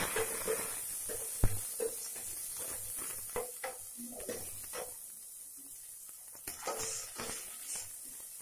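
Whole spices and dried red chillies frying in a little hot oil in an aluminium pot, with irregular small pops and crackles. There is one sharper knock about a second and a half in, and a ladle stirs the pot near the end.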